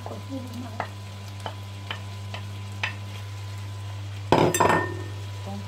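Wooden spoon tapping and scraping against a plate about twice a second as cooked seafood is pushed off it into a frying pan, with a light sizzle over a steady hum. A loud clatter about four seconds in as the plate is put down.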